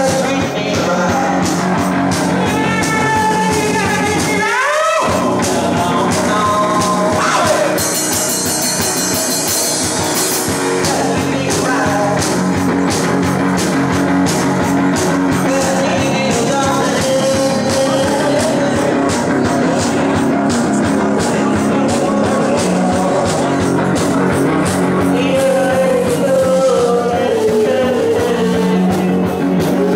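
One-man band playing rock music live: electric guitar over kick drum and cymbal, with singing, and a rising slide in the guitar about four seconds in.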